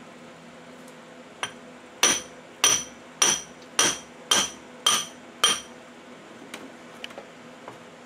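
Hammer striking a chisel: one light tap, then seven sharp blows at about two a second, each with a short metallic ring, knocking loose a glued-on top plate.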